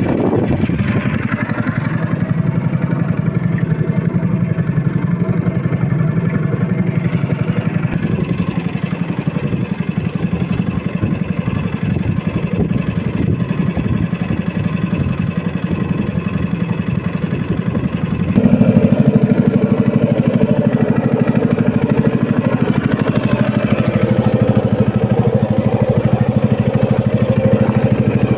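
Small fishing boat's engine running steadily; about eighteen seconds in it gets louder and higher as the throttle is opened.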